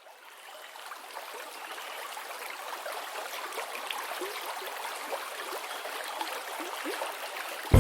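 Trickling, gurgling water with small bubble blips, fading in over the first couple of seconds and then holding steady.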